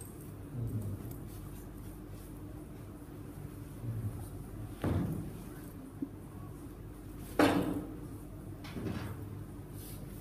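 Three short, dull thumps over a steady low hum. The loudest comes about seven and a half seconds in, with smaller bumps before it.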